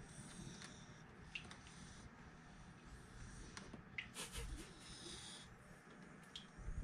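Faint snuffling breaths from a beagle, with a short snort a little past four seconds in and a few soft clicks.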